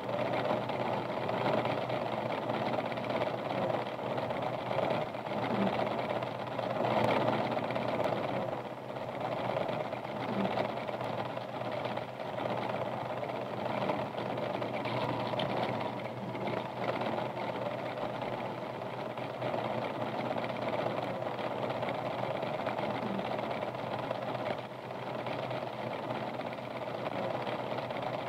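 A steady mechanical running noise that holds at a fairly even level throughout, without clear pauses.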